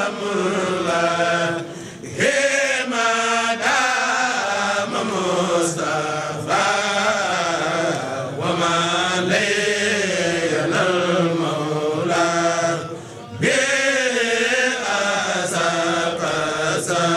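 Chanting of an Arabic devotional poem in the Mouride khassaid style, praising the Prophet, sung in long drawn-out phrases with two short breaks.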